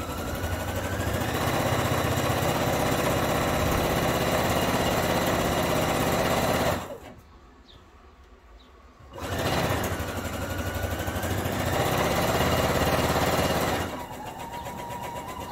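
Pfaff computerised sewing machine stitching a long, loose gathering row, its motor whining up as it starts. It stops for about two seconds partway through, then runs again and drops quieter near the end.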